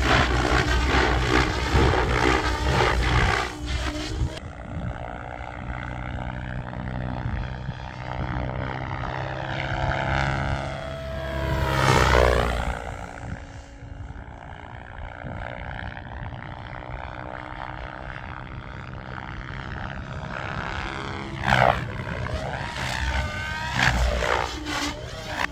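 Electric RC helicopter (Specter V2 NME) flying, its motor and rotor whine rising and falling in pitch as it moves about. A close fly-by about twelve seconds in sweeps down in pitch as it goes past, and there are more quick passes near the end.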